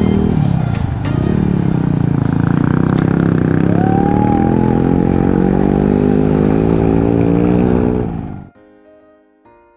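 Motorcycle engine running under load, its pitch climbing steadily, then cut off abruptly about eight and a half seconds in. A few soft piano notes follow.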